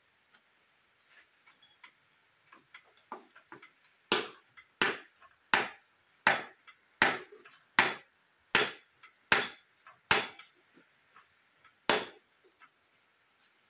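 Hammer blows on a block set over a cylinder liner, driving the reversed liner down into the bore of an Isuzu Panther diesel engine block. A few light taps come first, then about ten hard, evenly spaced strikes, a little more than one a second, and one last strike after a short pause.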